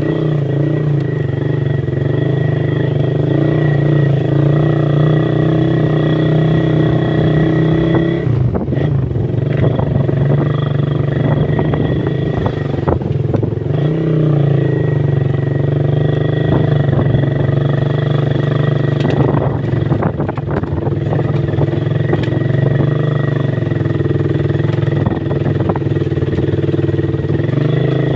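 Motorcycle engine running steadily under way, its note shifting briefly about eight seconds in and again around fourteen seconds.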